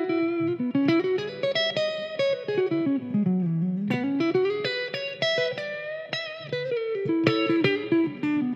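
Squier Telecaster Cabronita electric guitar on its neck pickup, played clean through a Marshall AVT Tribute 50 amp with delay and ambience added, giving a soft, fat tone. It plays a melodic run of quickly picked single notes that falls in pitch to a low point about three and a half seconds in, then climbs again.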